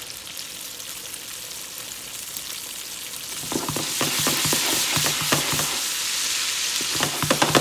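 Lingcod fillets and chopped garlic frying in hot oil in a nonstick skillet, sizzling steadily. About three and a half seconds in, the sizzle grows louder and fills with crackling pops.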